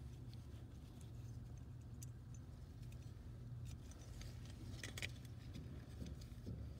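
Faint small metallic clicks and taps of carburetor choke parts, a spring-loaded plunger and its fork, being handled and worked into the carburetor body by gloved hands, over a steady low hum. A quick cluster of sharper clicks comes about five seconds in.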